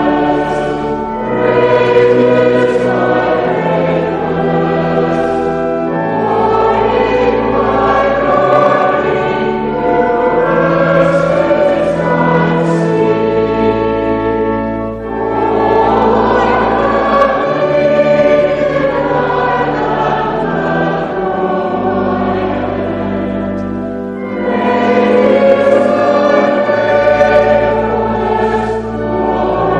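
A choir singing a hymn with instrumental accompaniment, in long held phrases with short breaks between lines.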